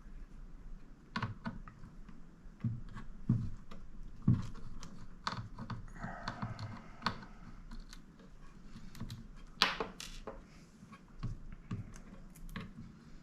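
Irregular small clicks and taps of a screwdriver and small metal and plastic parts being handled inside an HP Elite Mini 800 G9 mini desktop as its NVMe SSD is taken out, with a brief scrape about six seconds in and the sharpest click about ten seconds in.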